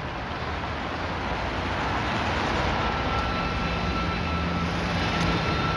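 City street traffic noise: a steady rumble of cars running and passing.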